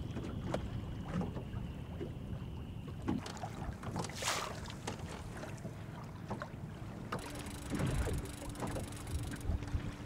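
Small open fishing boat moving slowly on a lake: water lapping at the hull and wind on the microphone, with scattered light clicks of rod and reel handling. A soft buzz with a low steady hum comes in about seven seconds in.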